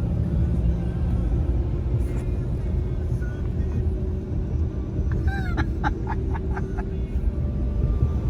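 Steady low rumble of a car on the road. About five seconds in comes a quick run of about six short, high notes.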